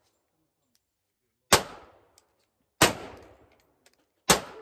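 Three gunshots, about a second and a half apart, each a sharp crack that trails off in a short echo.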